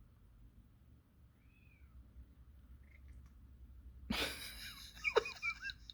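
Tabby cat giving a loud, harsh squealing meow about four seconds in, followed by a few short grumbling calls. Before it there are only a couple of faint short chirps.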